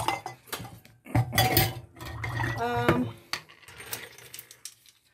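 Kitchen utensils clinking and knocking against stainless steel bowls and the countertop, in short scattered strokes, with a couple of brief spoken sounds in the middle.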